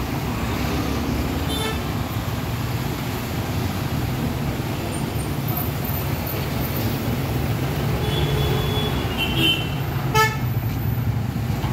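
Street traffic: a steady low engine and road rumble, with several short vehicle horn toots, the loudest about ten seconds in.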